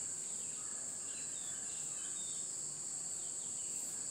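Steady high-pitched drone of insects such as crickets, with faint short falling chirps scattered through it.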